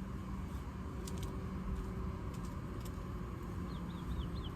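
Car turn-signal flasher clicking a few times, in close pairs about a second apart, then stopping, over a steady low hum. A bird gives four quick chirps near the end.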